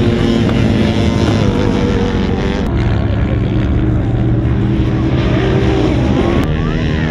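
Off-road engines running and revving on sand: a sport quad's engine, then, after a cut about two and a half seconds in, a trophy-truck-style off-road truck's engine as it drives past.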